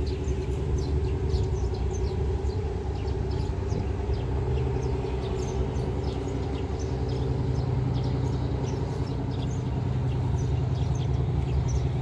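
Steady low engine hum, with a deeper engine note growing stronger about halfway through, and small birds chirping in many short high notes over it.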